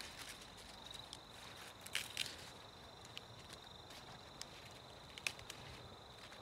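Faint outdoor ambience: a steady high-pitched whine, like an insect's, with scattered sharp clicks and crackles, the loudest about two seconds in and again past five seconds.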